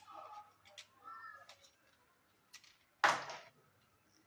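Light clicks and one sharp knock about three seconds in, from wires and the plastic six-module switch board being handled during wiring.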